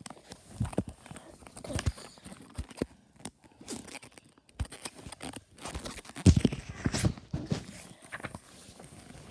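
Book being handled and its paper pages turned, with irregular knocks and rustles, loudest just past the middle.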